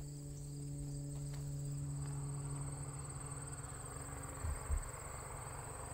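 Steady high-pitched chorus of crickets trilling in the grass, under a steady low hum that stops about four and a half seconds in. Two soft low thumps follow.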